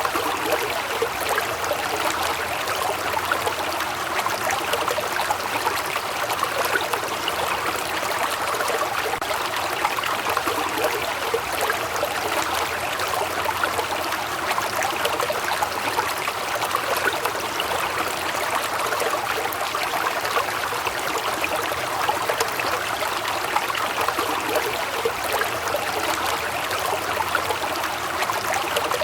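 Waterfall: water falling and splashing in a steady, continuous rush.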